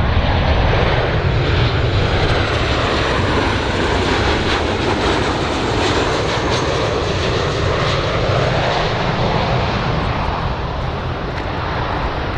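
Jet noise of a Boeing 737-800 BBJ2 passing low on landing approach. Its two CFM56-7 turbofans give a steady rushing noise, with a faint high whine in the first few seconds.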